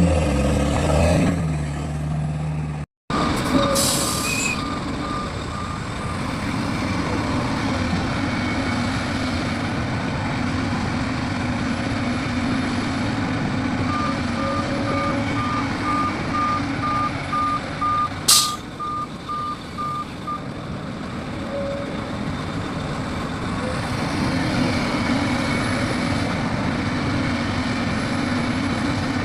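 Heavy diesel machinery running steadily while a vehicle's reversing alarm beeps in an even series, for a few seconds early on and again for about six seconds midway. Two short sharp hisses, typical of air brakes, stand out.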